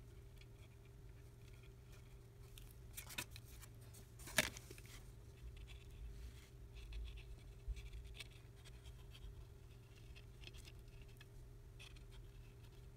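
Faint scratching and small clicks as the nozzle of an adhesive tube is worked along the edge of a phone's frame, with one sharper click a little over four seconds in, over a steady low hum.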